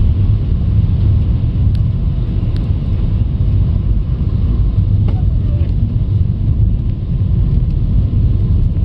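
Steady low rumble of a car's engine and tyres while driving on a snowy road, heard from inside the cabin. A few faint ticks sound over it, one about five seconds in.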